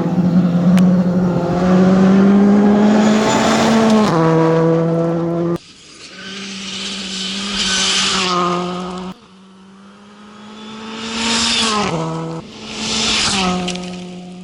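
WRC2 rally cars accelerating hard past, several passes one after another, each engine note rising and then dropping sharply at an upshift, with tyre noise over them. Each pass breaks off abruptly before the next begins.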